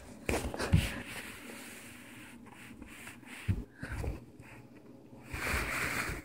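Handling noise from a camera being moved and repositioned on carpet: soft thumps and rubbing, with a longer scraping rub near the end.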